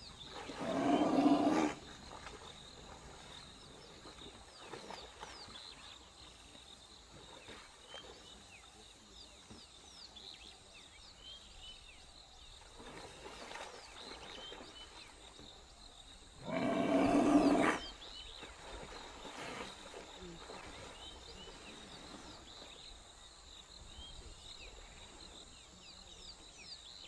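A large wild animal gives two loud, deep roar-like calls, about a second long each, one just after the start and the other about sixteen seconds in. Between them, faint insect-like high tones and small chirps continue.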